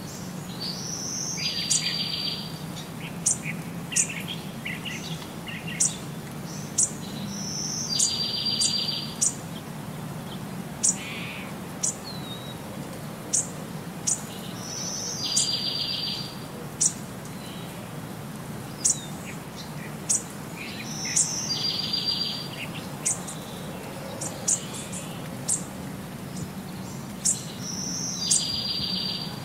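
High chirps and sharp clicks in a repeating loop, the same short chirping phrase returning about every seven seconds, over a low steady hum.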